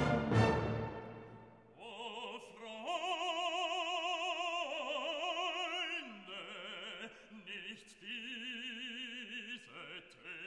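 Background music: a full orchestral chord fades out over the first second or so. Then a solo operatic voice sings long held notes with strong vibrato, stepping to new pitches every second or two.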